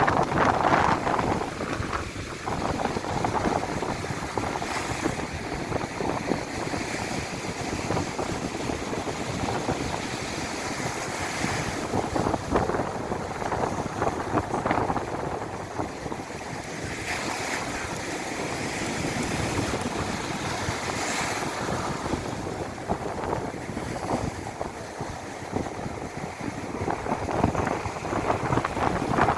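Rough sea in strong wind: waves surging and breaking every few seconds over a constant rushing noise, with wind buffeting the microphone.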